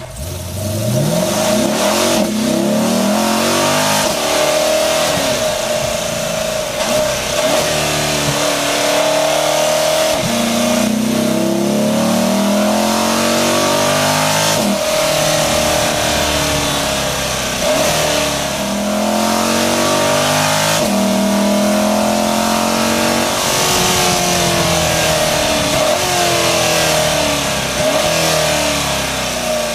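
C8 Corvette Stingray's mid-mounted 6.2-litre V8, heard from a microphone on the engine, pulling hard under acceleration on track. The pitch climbs for a few seconds and then drops sharply at each upshift, again and again, with a steady whine running through.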